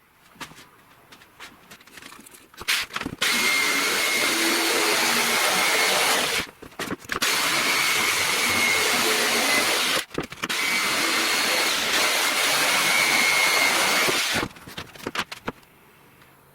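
Jigsaw running, cutting speaker holes out of an OSB board: a steady motor whine with blade noise in three runs, stopping briefly about six and a half seconds and ten seconds in. A few light clicks come before it starts.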